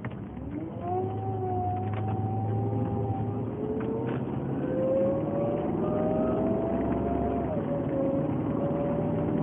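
Whirring whine from a 2007 Volvo S80, its pitch climbing in steps as the car gains speed, over the steady hum of the engine. The noise is worse when cold and louder on acceleration and turning; its cause is unknown to the owner.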